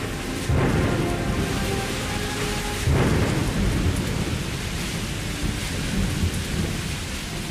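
Heavy rain pouring steadily, with two claps of thunder rumbling in, one about half a second in and a louder one about three seconds in.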